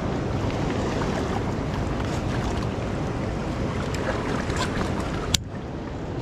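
Steady rush of wind on the microphone and river water flowing along a rocky bank, with one sharp click about five seconds in, after which the rush briefly drops.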